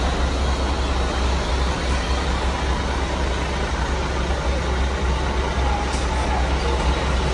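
Yutong ZK6128H coach's diesel engine running as the bus pulls slowly forward, a steady low rumble.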